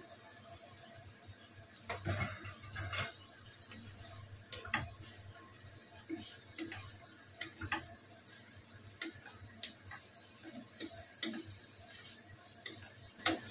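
Wooden spatula stirring fusilli pasta and broccoli in a nonstick wok, giving irregular light knocks and scrapes against the pan over a faint sizzle. The louder knocks come about two and three seconds in.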